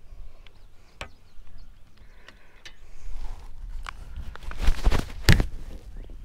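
Camera handling noise: the action camera rubbing and knocking against clothing, with a few sharp clicks, then scraping that grows louder from about three seconds in and is loudest around five seconds.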